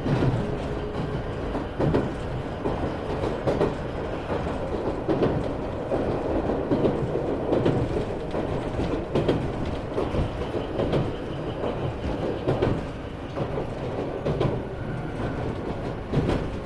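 Iyotetsu 3000 series electric train running between stations, heard from inside motor car MoHa 3103: a steady rumble of wheels on rail, broken by frequent clicks and knocks as the wheels pass over rail joints.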